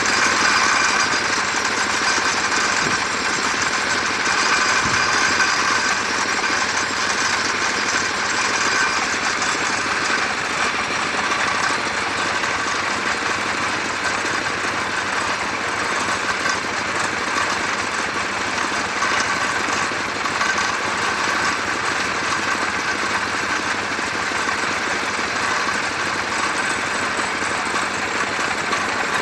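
Engine-driven sawmill saw running steadily while cutting mango wood, a dense, even machine noise with no break.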